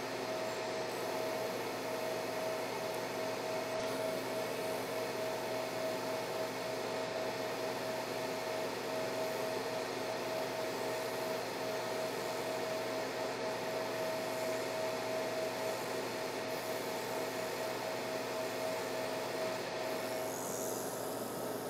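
A 50-watt fiber laser marking machine running as it ablates the plastic package off a chip on a hard-drive circuit board: a steady hiss with a constant tone through it. The sound shifts in its upper range about twenty seconds in.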